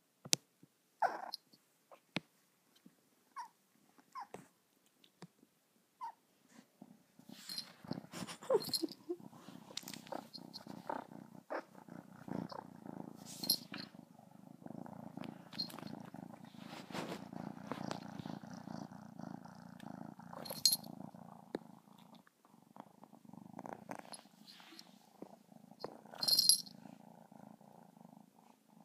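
Cat purring close to the microphone, starting about a quarter of the way in and running on with one short break. Before the purr there are a few faint clicks, and the small bell on the cat's collar tinkles briefly four times.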